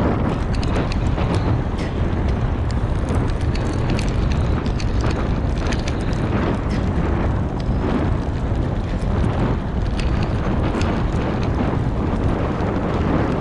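Bike rolling fast over a dirt trail covered in fallen leaves: a loud, steady rumble of wind on the microphone and tyre noise, with scattered crackles of dry leaves.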